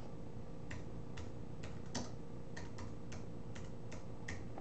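Computer keyboard being typed on: about a dozen irregular key clicks, two or three a second, over a faint steady hum.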